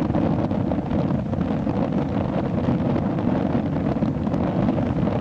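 Wind buffeting the microphone, a steady low rumble, with the wash of surf on the beach beneath it.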